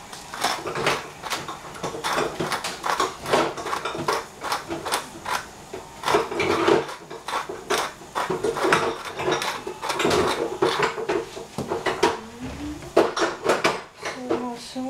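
A hand-twisted pepper mill grinding over a pan of minced beef: a long run of short, irregular crunching clicks, a few strokes a second.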